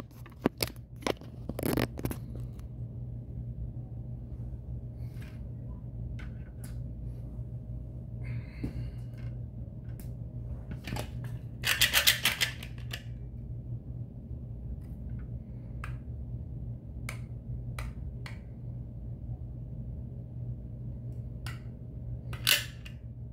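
Caulking gun squeezing out a bead of adhesive: its trigger clicking and rattling in a dense cluster about halfway through and again briefly near the end, with scattered knocks of handling over a steady low hum.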